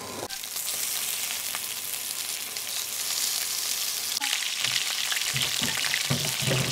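Inobuta pork belly blocks searing in hot oil in a frying pan over high heat: a loud, steady sizzle that starts about a third of a second in as a slab goes into the pan. A few dull knocks sound near the end.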